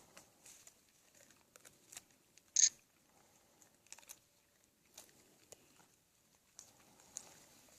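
Scattered soft crunches and rustles of black bears feeding on peanuts, with one sharp, much louder crackle about two and a half seconds in.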